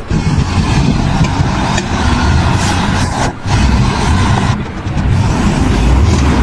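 A heavy vehicle's engine running loudly, with a brief dip in the sound about three seconds in.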